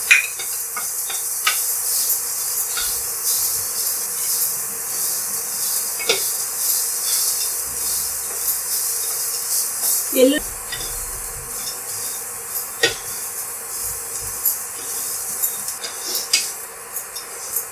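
Boiled chickpeas sizzling in hot oil in a nonstick frying pan while a wooden spatula stirs them. Scattered taps and scrapes of the spatula against the pan are heard. The sizzle is a steady hiss that eases off in the second half.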